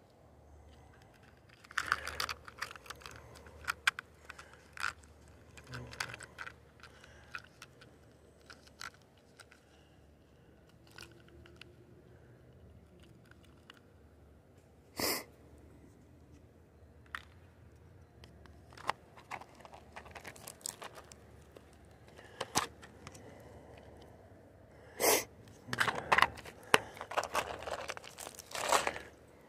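Close handling noises: scattered clicks, scrapes and crinkling rustles, with one sharper snap about halfway through and a dense run of crackly rustling near the end.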